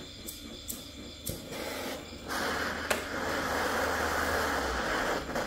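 A few sharp clicks, then a handheld gas torch lights about two seconds in and runs with a steady hiss as its blue flame heats a steel fishing hook on a brick.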